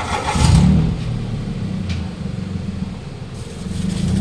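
Hyundai Accent's 1.4-litre four-cylinder engine revving up as the car pulls away, its pitch rising about half a second in and again near the end, with a brief rustling noise at the start. The engine runs smoothly now that a new ignition coil and spark plug have cured its misfire.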